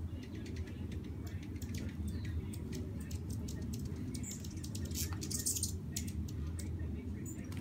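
Hummingbirds at a nectar feeder giving rapid high chip notes, with a burst of squeaky chatter a little past the middle, over a low steady hum.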